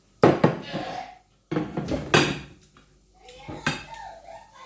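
Cutlery clinking and scraping against a plate of rice and stew: several sharp clinks with scraping between them.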